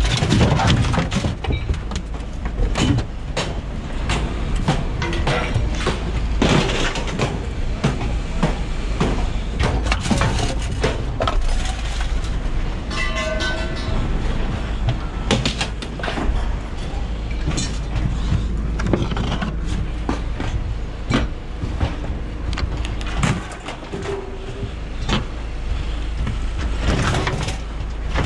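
Scrap metal, washing-machine drums among it, being unloaded by hand and thrown onto a scrap pile: a steady run of clanks and knocks of metal on metal, over wind rumbling on the microphone.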